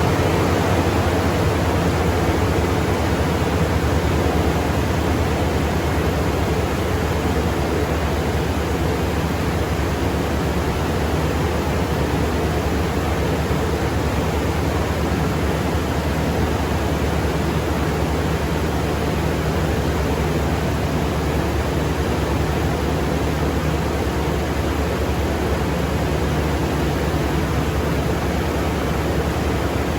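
Toyota Tundra's 5.7-litre i-Force V8 idling steadily just after a start, heard with the engine cover off; the level eases slightly over the first few seconds.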